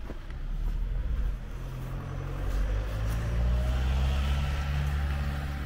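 Deutz farm tractor's diesel engine running steadily, a low hum that grows a little louder as the tractor comes closer.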